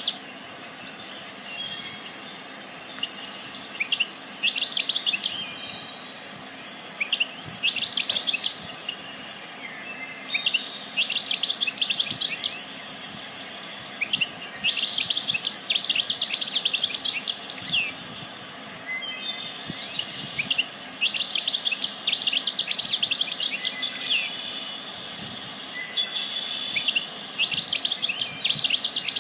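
A songbird sings short, rapid runs of high chirps, one phrase every few seconds, over a steady high-pitched background drone.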